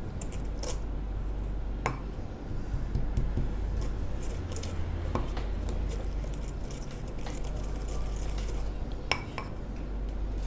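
Pestle pounding and grinding flowers with water in a mortar: irregular taps and clinks at uneven intervals, a few sharper strikes among them.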